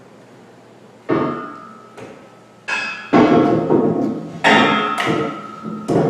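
Heavy metal rock slider clanking against the car lift's arms as it is set in place: about five metallic knocks, each followed by a ringing that dies away, the loudest near the middle.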